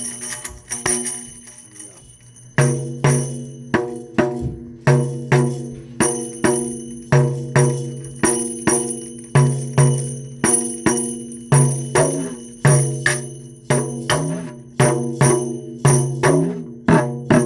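Double-row tambourine played in a steady rhythm, about two hits a second, its jingles ringing with each stroke. The steady beat follows a couple of seconds of lighter shaking.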